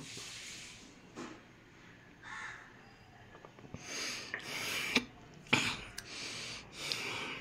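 A man breathing heavily, with several sharp, hissing breaths out through the nose and mouth, a few small mouth clicks between them. It is his reaction to the very bitter taste of a gulped shot of jamun, neem and bitter-gourd juice.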